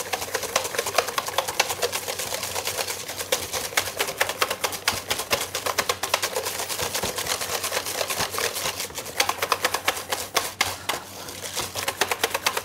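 Wire balloon whisk beating egg yolks and caster sugar in a stainless steel bowl: fast, steady clicking of the wires against the metal, easing briefly near the end. The yolks are being whisked until they turn slightly white and well mixed.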